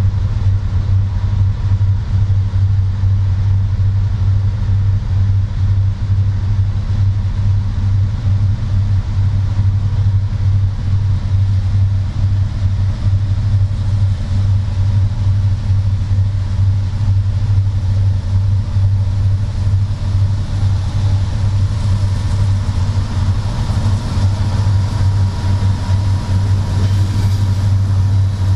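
A CSX freight train's diesel locomotives working under power as they pull the train up to speed from a standstill: a steady, deep engine drone. Near the end, rail and wheel noise and a thin steady whine grow louder as the lead GE AC44CW draws close.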